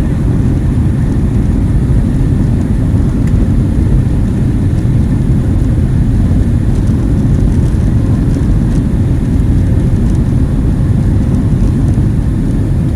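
Steady, loud low rumble of a jet airliner's engines and airflow heard from inside the passenger cabin.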